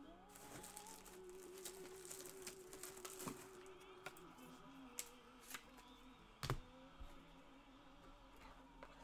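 Near silence with soft, scattered clicks and taps of trading cards being handled and flipped, with one sharper tap about six and a half seconds in.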